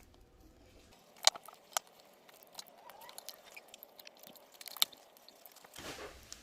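Small clicks, taps and a light crackle of tools working at the battery's adhesive pull tabs inside an opened iPhone 8 Plus. Two sharp clicks come a little over a second in, and another comes near five seconds.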